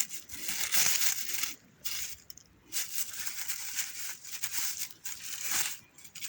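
Irregular crunching and rustling of dry forest litter, in uneven bursts with short pauses.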